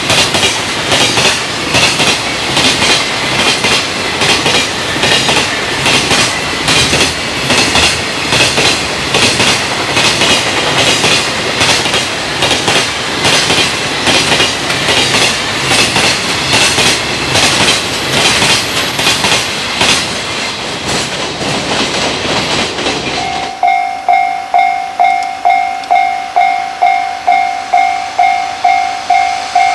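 Long container freight train passing at speed, its wheels clattering over the rail joints in a fast, steady rhythm. About 23 seconds in it gives way to a steady, pulsing warning tone, about one and a half beats a second.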